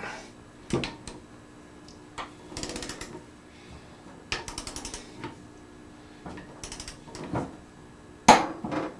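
Click-type torque wrench and its ratchet working a connecting-rod nut on a VW Type 1 crankshaft: short runs of quick ratchet clicks and single metallic clicks as the wrench reaches its set torque, with the sharpest click near the end.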